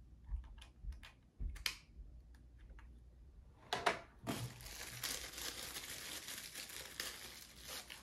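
Plastic packaging being opened by hand: a few light clicks and taps, then a sharp rustle about four seconds in and continuous crinkling and tearing through the last few seconds.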